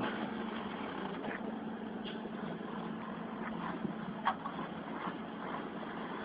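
Excavator's diesel engine running steadily with a low hum as the tracked machine climbs onto a lowboy trailer, with two short knocks about two and four seconds in.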